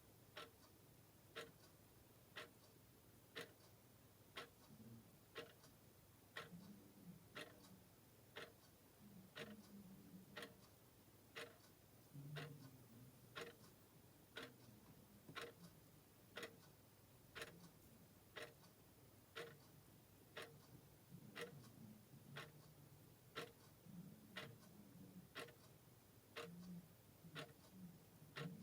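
Clock ticking quietly and steadily, about one tick a second.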